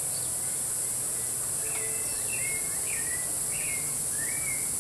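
A steady high-pitched insect drone fills the background. From about one and a half seconds in, a bird calls repeatedly in short whistled notes, some sliding down and one sliding up.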